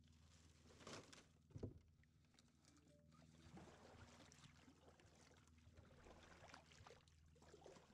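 Kayak paddle strokes dipping and splashing in the water, faint, with a couple of knocks from the paddle or the hull about a second and a half in.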